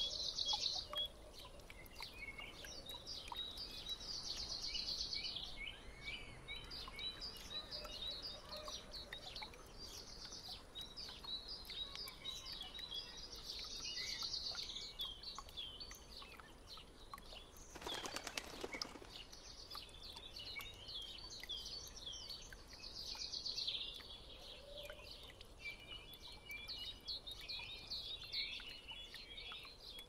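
Small songbirds chirping and trilling, several at once, in quick overlapping phrases. A brief burst of noise breaks in a little past the middle.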